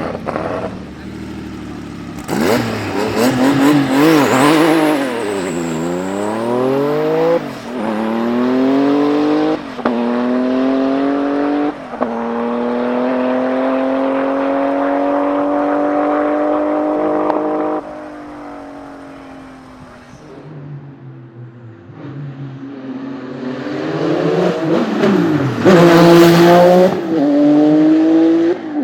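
Tuned Porsche 993 Turbo's 3.6-litre twin-turbo flat-six accelerating hard: a launch about two seconds in, then rising pulls broken by quick gear changes, and a long pull that cuts off abruptly as the throttle is lifted. After a quieter spell the engine revs hard again near the end.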